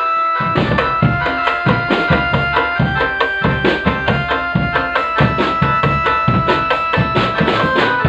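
Drum band music: a steady beat of drums with a sustained melody played over it. The drums pause for a moment at the start, then come back in.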